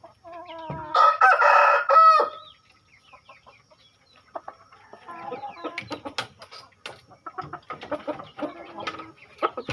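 A kampung chicken rooster crows once, a loud call of about two seconds near the start, followed by softer clucking among the chickens with scattered clicks and scuffling.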